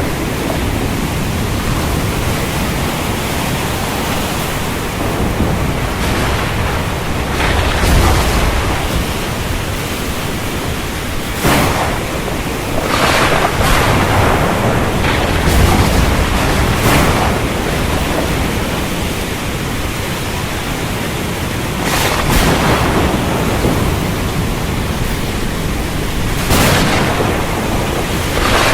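Storm at sea: strong wind and surf making a continuous heavy rush of noise, with louder crashes of waves or gusts every few seconds.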